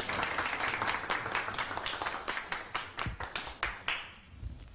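A small group applauding: dense, irregular claps that die away about four seconds in.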